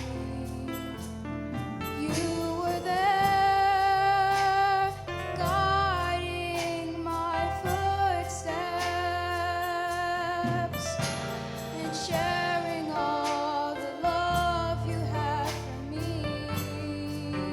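Children's choir singing a gospel song, held wavering notes over a live band with low sustained bass notes and a regular drum beat.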